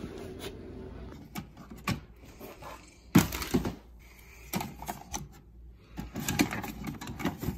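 Scattered knocks and clicks of someone handling a Keurig single-cup coffee maker, opening the brewer and setting a K-cup pod in place. The loudest is a sharp clunk about three seconds in, followed by more clusters of clicks.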